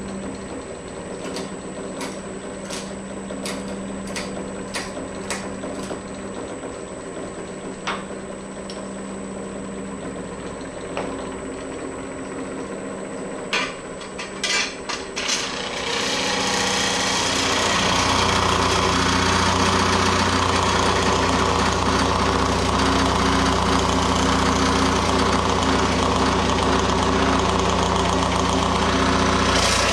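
Pullmax reciprocating sheet-metal machine running with a steady motor hum and a few sharp clicks. About sixteen seconds in it gets much louder and harsher as the dies work a steel panel.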